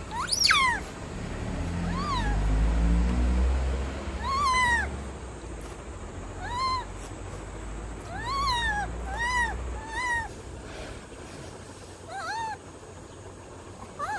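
A young rhesus macaque giving short, high coo calls, about nine spread irregularly, each rising then falling in pitch. The loudest is a sharp upward squeal near the start. A low rumble runs underneath through the middle.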